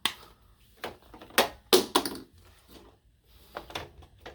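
Plastic bottles, cans and tubes of shop chemicals knocking and clattering as they are picked up and moved around on a tool cart. Several separate knocks, loudest about a second and a half to two seconds in.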